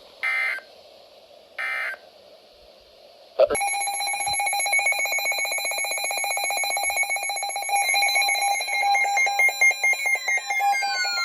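Two short bursts of EAS digital data tones, the end of an alert's sign-off, then about three and a half seconds in a click and a loud electronic alarm tone. The alarm pulses rapidly with several pitches at once, and falling sweeps join it near the end.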